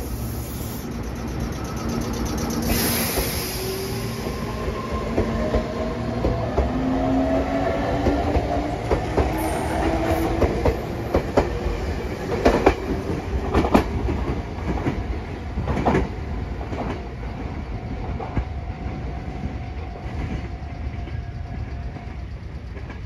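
Meitetsu 3500 series electric train pulling out of the station, its motor whine rising in pitch as it accelerates. Wheels clack over rail joints in the middle, and the sound then fades as the train moves away.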